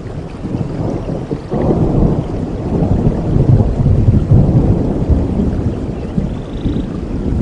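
Rolling thunder rumbling over steady rain, swelling suddenly about a second and a half in and easing off near the end.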